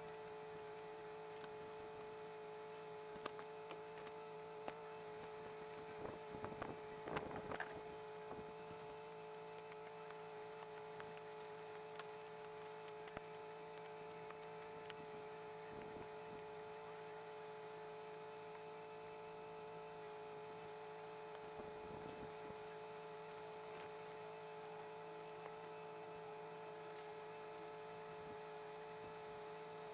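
Faint steady hum at one constant pitch, with a few brief rustling and clicking noises about six to eight seconds in and a couple more later.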